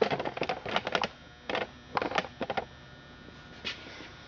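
Irregular run of light clicks and knocks, hands handling a Husqvarna 272 XP chainsaw, for about two and a half seconds, then one more click near the end.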